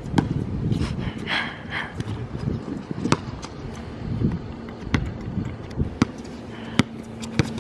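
A basketball bouncing on a hard court during play: a handful of sharp, single bounces at uneven gaps, over a steady outdoor background.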